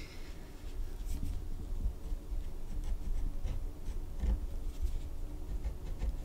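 Pen writing on a sheet of paper: irregular scratching strokes of the pen tip, picked up close to the microphone.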